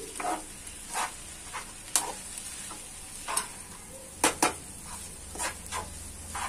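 Metal spoon stirring and scraping poha in a black non-stick wok over a gas flame: irregular scrapes and clinks against the pan, the loudest a quick pair a little past the middle, over a light sizzle of the frying.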